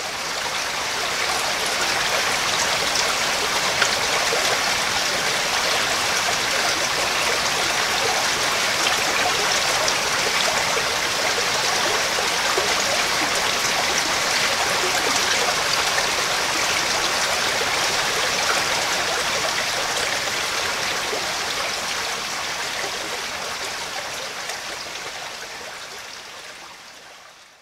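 Shallow rocky stream running over stones and small riffles: a steady splashing hiss that fades out over the last few seconds.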